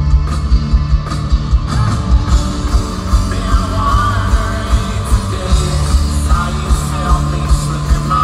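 Live rock band playing loud: a male lead singer over electric guitar and a fast, steady drum beat.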